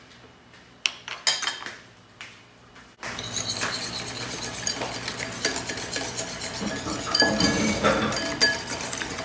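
A few separate clinks of a metal measuring spoon and dish against glass. Then, from about three seconds in, a wire balloon whisk beats egg yolks and sugar in a glass bowl, a rapid, continuous clinking and scraping of the wires against the glass.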